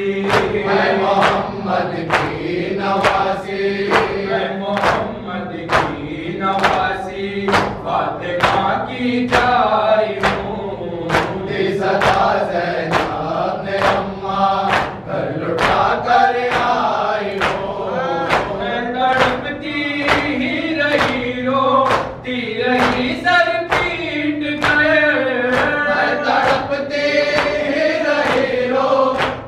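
Men's voices chanting a noha lament in unison, with the steady, evenly spaced slap of palms striking chests (matam) keeping the beat.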